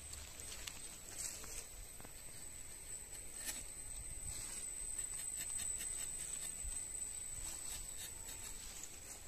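A steady high-pitched insect trill, with a few faint scrapes of a rubber-tapping knife shaving bark from a rubber tree's tapping cut.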